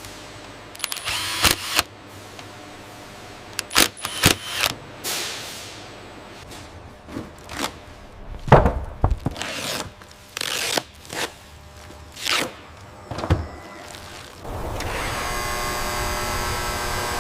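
Factory machinery and power tools at work: a string of short mechanical clicks, knocks and whooshing tool noises, then a steady electric machine hum starts near the end.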